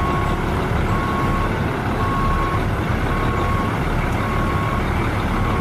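Truck's reversing alarm beeping steadily, one tone about once a second, over the continuous rumble of its running engine.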